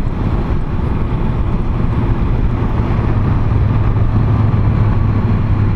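Yamaha XJ900 Diversion's inline-four engine running steadily while the motorcycle is ridden, a low even drone under steady wind and road noise. The engine note firms up slightly about halfway through.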